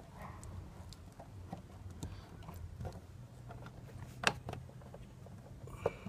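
Small clicks and taps of hands working on a plastic fuel pump top and its hose fittings, with a sharper click about four seconds in and another near the end, over a faint low hum.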